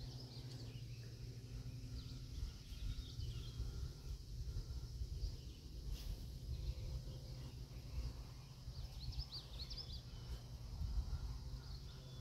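Small birds chirping over a steady low rumble, with a quick run of high chirps near the end.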